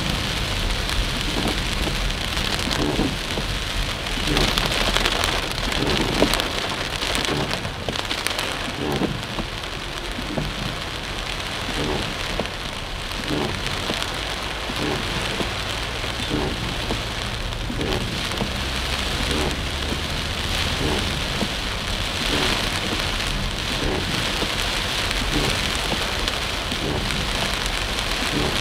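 Heavy rain falling on a car's windshield and roof, heard from inside the car as a steady hiss with scattered drop taps, over the car's low road rumble.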